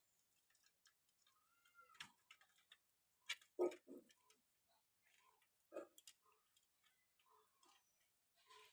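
Faint, scattered taps and clicks, irregular and a second or so apart, the way pigeons' beaks tap on a hard surface as they peck up food.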